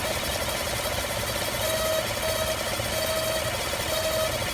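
2015 5.3L V8 truck engine idling, with an intermittent whistling tone, which the owner calls a vacuum noise, pulsing on and off a little more than once a second. The owner says it is not the belt or the fans and cannot find its cause.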